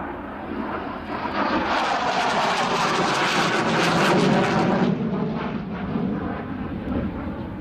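Polish Air Force MiG-29A's twin Klimov RD-33 turbofans roaring through a display manoeuvre overhead. The jet noise builds to its loudest about four seconds in, then its high hiss falls away suddenly about five seconds in, leaving a lower rumble.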